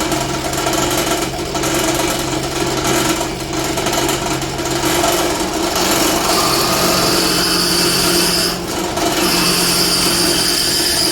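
Drill press running with a 5 mm bit cutting into a Damascus steel knife blade. About six seconds in a high-pitched squeal joins the steady motor hum, breaking off briefly and then resuming: the bit is going blunt and rubbing rather than cutting.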